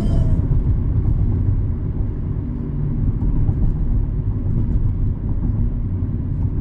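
Steady low rumble of an Airbus A320neo, its sound lying mostly in the low range with little hiss above.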